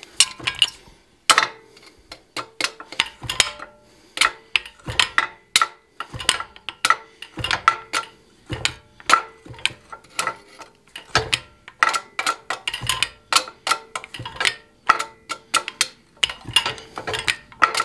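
Fly press strokes driving a straight chisel into a hot iron bar: a quick string of metallic clanks and clinks with short ringing, about two a second, starting about a second in. The bar is moved along the steel press table between strokes.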